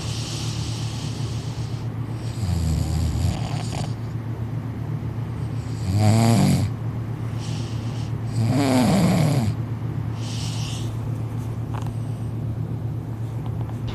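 A man snoring hard in deep sleep on his back: three loud, buzzing snores a few seconds apart, with breathy hissing breaths between them.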